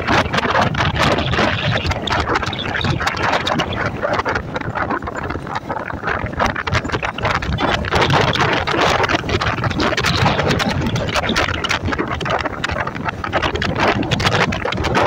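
Wind buffeting the microphone on a moving Yamaha motorcycle, a loud, constant rush with rapid gusty crackle over the motorcycle's running and road noise.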